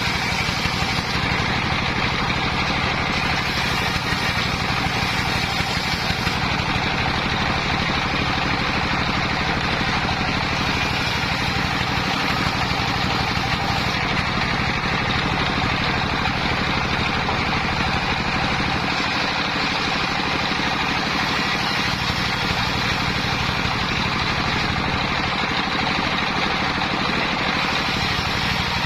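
Homemade engine-driven circular saw running steadily, its motor holding an even note throughout. Near 19–22 s and 25–27 s the lowest part of the sound dips slightly.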